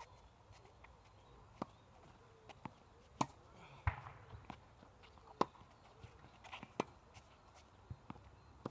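Tennis ball being struck by a racket and bouncing on a hard court: a string of sharp pops at uneven intervals, with footsteps on the court between them.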